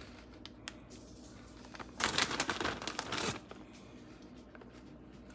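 Plastic bag of shredded cheese crinkling as it is handled, with a louder rustle of about a second and a half near the middle and a few light clicks before it.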